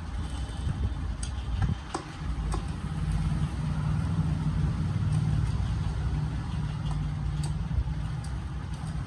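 A steady low engine hum, as of a motor idling, with a few short metallic clicks from a hand tool as the bolts of a Honda Activa's gearbox cover are tightened.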